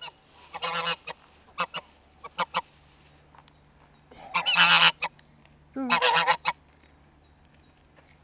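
Domestic goose honking: a burst of calls about half a second in, a few short honks, then two longer, loud honks about four and a half and six seconds in.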